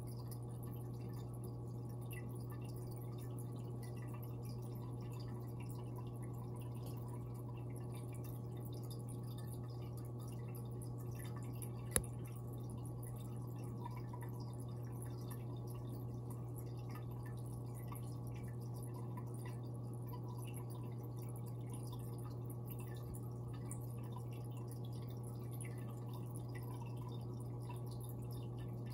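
Steady low hum from fish-tank equipment with light, scattered dripping of water throughout, and a single sharp click about twelve seconds in.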